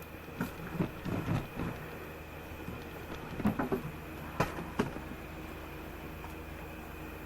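Scattered knocks and clatters, some in quick clusters, over a steady background hum, dying away after about five seconds.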